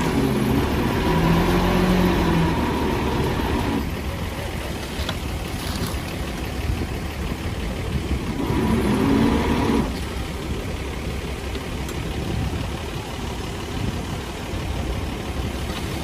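Heavy diesel engine of earthmoving equipment running steadily. It works harder with a louder pitched tone through the first few seconds and again about eight to ten seconds in, then drops back to a lower rumble.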